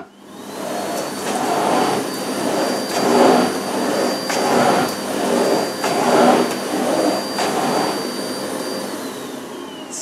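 Miele Blizzard CX1 bagless cylinder vacuum cleaner running with a steady high whine while its floor nozzle is pushed back and forth over carpet, the rush of air swelling with each stroke about every second and a half. The whine rises in pitch about a second in and drops in pitch near the end.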